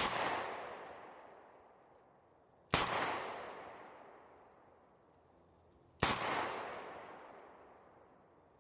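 Three shots from a Smith & Wesson 686 Plus .357 Magnum revolver firing full-power Remington UMC soft point loads, about three seconds apart. Each sharp report is followed by a long echo that dies away over two seconds or more.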